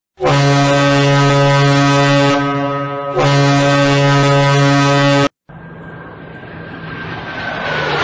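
Deep, loud horn blast held steadily for about five seconds, weakening briefly midway and then cut off abruptly. After it comes the rising noise of an approaching vehicle, growing louder with a faint falling whine.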